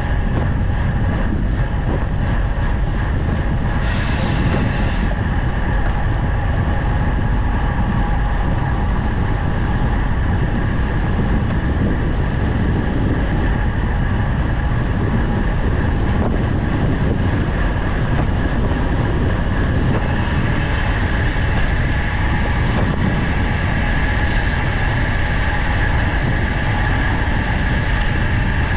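Road bike descending fast: steady wind rush over the action camera's microphone, with a constant rolling hum from the tyres on asphalt. The noise grows brighter about twenty seconds in.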